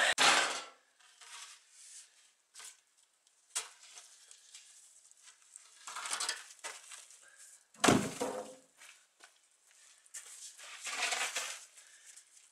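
A slab of polystyrene concrete being turned over and dragged on gritty ground: scraping and crunching, with one heavy thud about eight seconds in.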